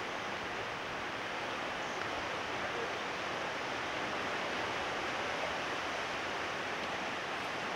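Steady rush of a flooded river's fast, turbulent water.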